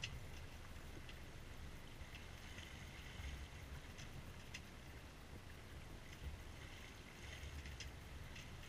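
Water washing and splashing along the hull of a C&C Mirage 24 sailboat under sail, with low wind buffeting on the microphone that comes and goes and scattered light clicks. No engine is running.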